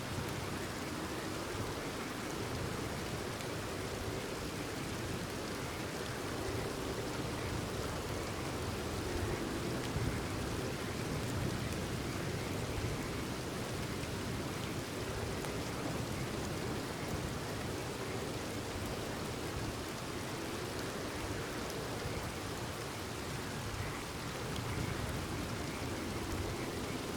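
Steady rain falling, an even hiss of many drops without pause.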